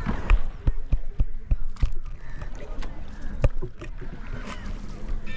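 Rowboat on the lake: a string of irregular wooden knocks from the oars and hull, with people talking in the background.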